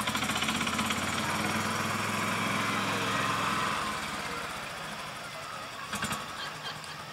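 A motor engine running, loud with a fast even pulse, then fading after about four seconds; a couple of sharp knocks about six seconds in.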